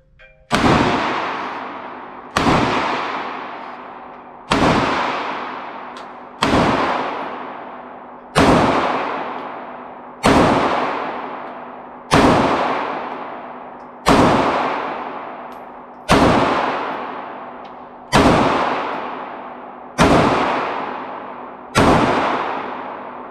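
Twelve shots from a Taurus G2C 9mm pistol, fired at a steady pace about two seconds apart. Each shot rings out in a long echo along the indoor range lanes. The shooter is firing through the pistol's full 12-round magazine until it is empty.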